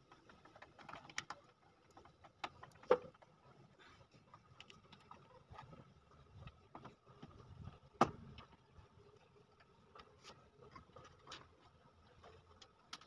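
Scattered light clicks and taps of a screwdriver and metal parts as an old wall clock's brass movement is screwed into its wooden case. There are two sharper knocks, about three seconds in and about eight seconds in, over a faint steady hum.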